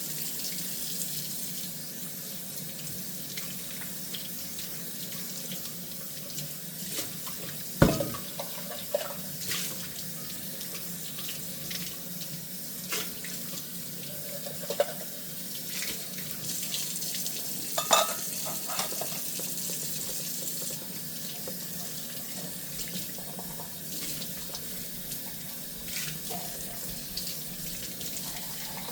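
Kitchen tap running steadily into a sink during hand dishwashing, with occasional knocks and clinks of dishes. The loudest knock comes about 8 seconds in, and a ringing clink comes near 18 seconds.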